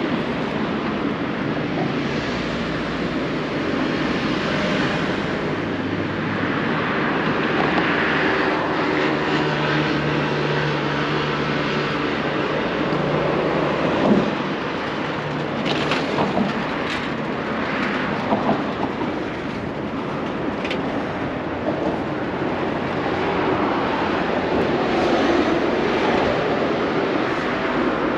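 Street traffic noise: vehicles passing, with an engine hum swelling near the middle and a sharp knock about halfway through.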